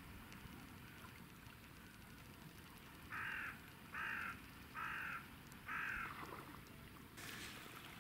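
A crow cawing four times, short calls a little under a second apart, over faint background hiss. Near the end, rain starts to patter on the water.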